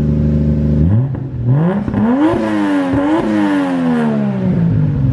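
Nissan Skyline R34's swapped Toyota 1JZ straight-six idling, then free-revved: a quick blip about a second in, then a longer rev that peaks around the middle and falls back to idle near the end. The engine has just had its wiring and spark plugs sorted, and the revs come out clean.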